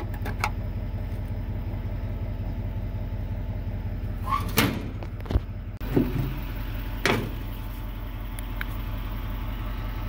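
A vehicle engine idling steadily in the background, a low even hum. Over it come a few sharp clicks and metal knocks of parts being handled, the loudest just after halfway.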